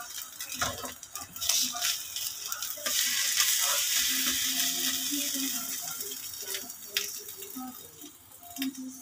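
Sardine-and-egg omelette sizzling in oil in a nonstick frying pan, with a few sharp taps and scrapes of a silicone spatula on the pan early on. The sizzle swells about three seconds in and fades near the end.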